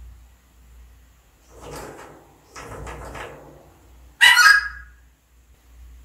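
African grey parrot vocalising: a couple of quieter, breathy sounds, then one loud, short call about four seconds in.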